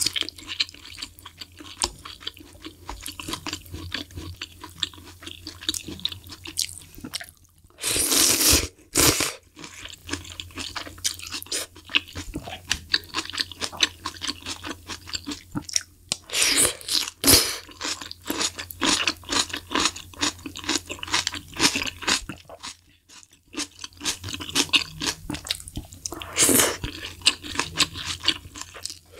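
Close-miked chewing and crunching of malatang (spicy hot pot) noodles and vegetables, interrupted three times by a louder, longer slurp.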